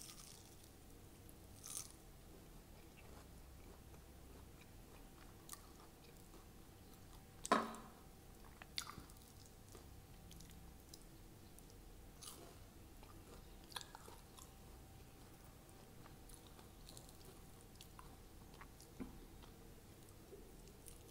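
Eating crisp fried sabudana vada (sago patties): quiet chewing broken by a few short crunchy bites every few seconds, the loudest about seven and a half seconds in.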